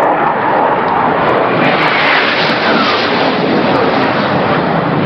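Jet aircraft making a loud, low pass, a steady roar with a whine that falls in pitch about two seconds in.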